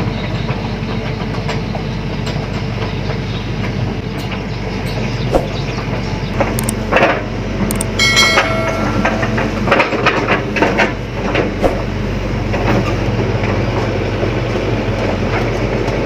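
Sany SY75C excavator's diesel engine running steadily under work, with irregular knocks and clatter of gravel and metal from about four seconds in, and a brief high metallic squeal around the middle.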